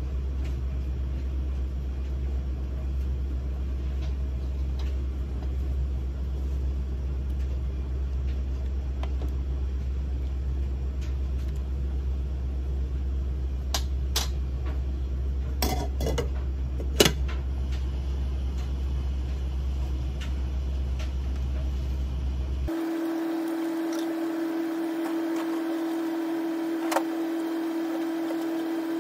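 Gas stove burner running under a pot of simmering stew: a steady low rumble, with a few sharp clinks of pot and lid a little past the middle. Near the end the rumble stops abruptly and a steady hum takes over.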